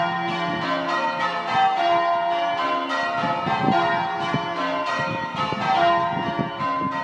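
A ring of six church bells rung full-circle, one bell sounding after another at an even pace. The front five are Pennington bells, and the 13 cwt John Taylor tenor in F is the lowest note.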